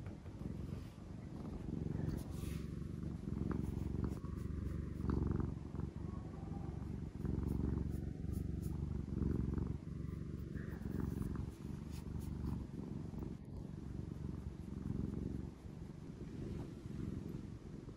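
Black-and-white domestic cat purring close up and without pause, the purr swelling and easing every second or two.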